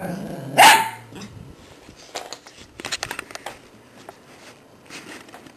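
A poodle puppy barks once, about half a second in. Scattered clicks and knocks follow as it noses and paws at the plastic lids of a Paw Hide puzzle toy.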